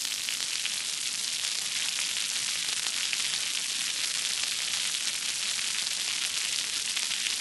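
Steady static hiss with light scattered crackles, an old-film surface-noise effect.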